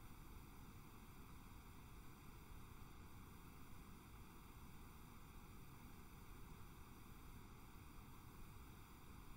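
Near silence: a faint, steady hiss with nothing else in it.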